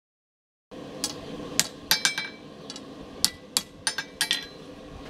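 Hand hammer striking the end of a steel bar on a steel anvil while forging it. There are about nine sharp, ringing blows in uneven groups, starting about a second in.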